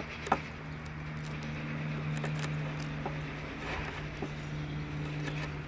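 Bench chisel paring out a hinge recess in a wooden board by hand: short scraping cuts with scattered clicks, two sharp ones near the start. A steady low mechanical hum runs underneath.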